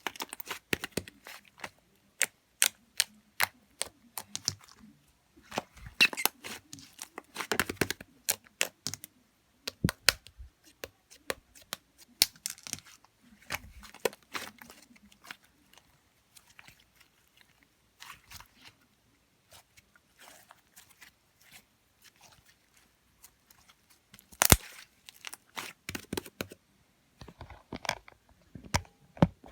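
Irregular sharp clicks and crackly rustling close to the microphone, coming in clusters with quieter stretches between; there is a single loud click about two-thirds of the way through.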